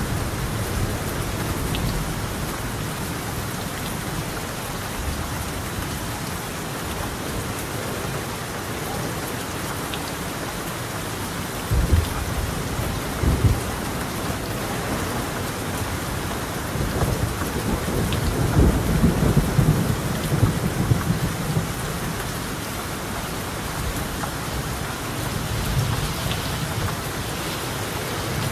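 Steady heavy rain on a tiled roof, with rumbles of thunder: two short ones about twelve and thirteen seconds in, and a longer rolling rumble a little past the middle.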